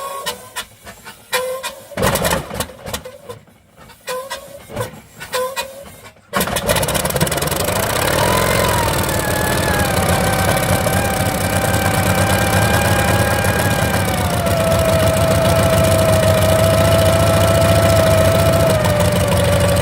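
Helicopter engine start: first a few seconds of irregular clicking and short tones, then about six seconds in a sudden loud, steady rush of engine noise comes on, with a whine that rises briefly and then settles to a lower steady pitch in two steps.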